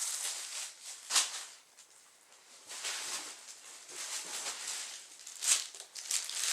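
Packaging and styrofoam packing peanuts rustling and crinkling as items are dug out of a box, with a sharp crackle about a second in and another near the end.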